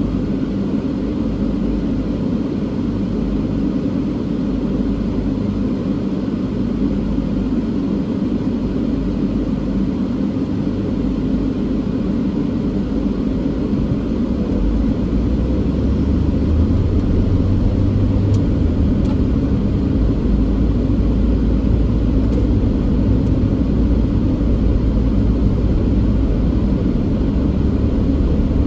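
Car heard from inside the cabin: a steady low rumble while stopped at a red light, growing louder about halfway through as the car pulls away and gathers speed, with engine and road noise.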